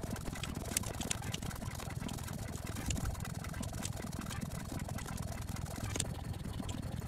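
Steady low rumble with a handful of scattered sharp clicks from a computer keyboard being typed on.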